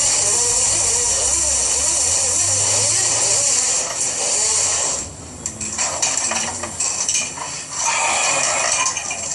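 Steel armor of BX (AC) cable, empty of its conductors, rattling and scraping as it is handled, with a steady hiss and a brief dip about halfway through.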